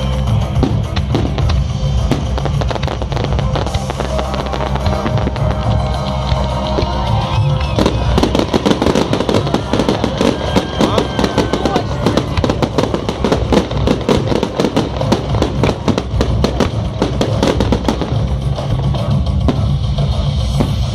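Fireworks bursting in a rapid crackling barrage, thickest from about eight seconds in until a few seconds before the end, over loud rock music with drums.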